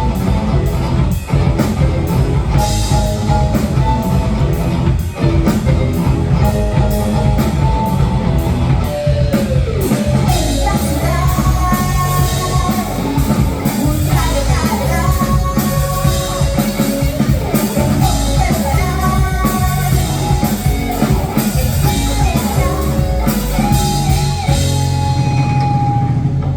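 Live rock-funk fusion band playing with drum kit, bass, guitar and keyboards: an even hi-hat beat drives the first half, then melodic lead lines come to the front. Near the end the cymbals drop out and a low note is held as the song closes.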